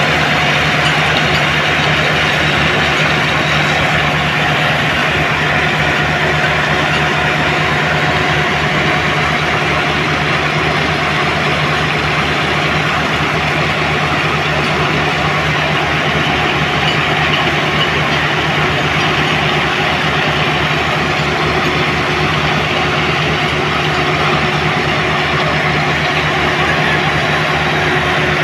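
Heavy machinery engine running steadily at a constant speed, an even hum with a low fixed drone.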